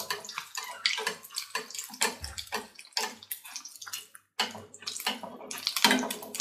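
Egg-coated chicken cutlets shallow-frying in hot oil, sizzling with irregular crackling and spitting as a steel spoon ladles the hot oil over their tops.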